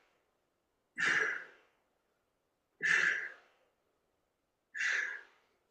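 A person breathing out hard three times, about two seconds apart, each a short breathy sigh, in time with exercise repetitions.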